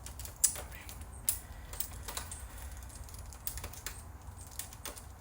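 Screwdriver and small screws working on a VCR's chassis: irregular light clicks and ticks, the two sharpest about half a second and a second and a half in.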